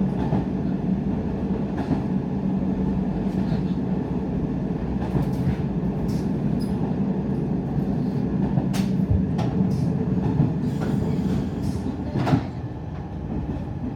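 Diesel railcar running along the line, heard from inside the car: a steady engine and running hum, with scattered clicks of the wheels over rail joints. The hum eases a little after a sharp click near the end.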